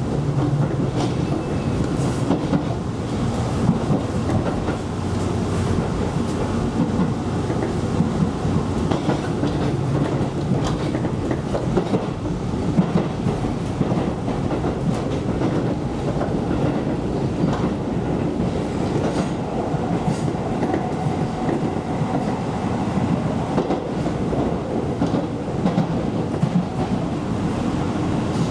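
Electric local train running along the track, heard from inside the leading car: a steady rumble of wheels on rail with scattered clicks over the rail joints.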